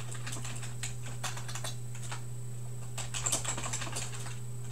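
Typing on a computer keyboard: quick runs of key clicks in two bursts with a pause between, over a steady low electrical hum.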